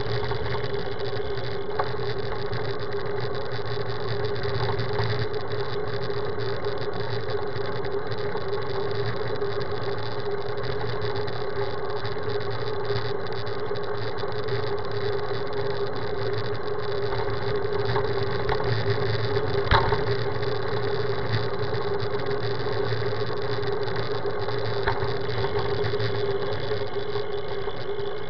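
Steady mechanical hum over a low rumble, unchanged throughout, with a single sharp click about twenty seconds in.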